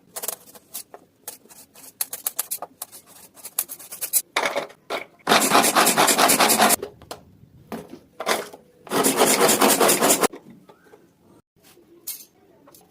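Vegetables being prepared by hand on a cutting board: a run of quick knife taps, then two spells of rapid rasping strokes, each about a second and a half long, then a few scattered taps.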